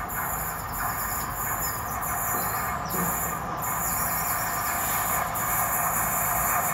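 Approaching pair of Class 47 diesel locomotives with Sulzer V12 engines, heard as a steady rumble that grows slowly louder as the train nears.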